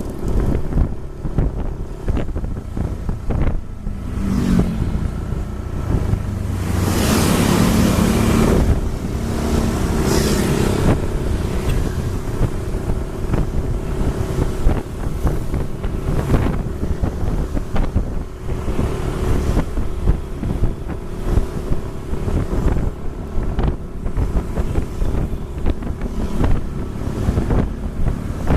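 Steady engine and road noise from a moving vehicle in traffic, with wind buffeting the microphone. A louder rushing swell comes from about seven to eleven seconds in.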